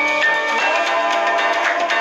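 Samsung Galaxy S8 ringtone playing: a bright melody of short pitched notes, then one note held through the second half.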